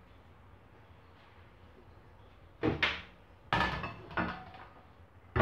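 Knocks and clatter of kitchen cupboards and cookware being handled: after a quiet first half, a few sharp bangs in quick succession start about halfway through.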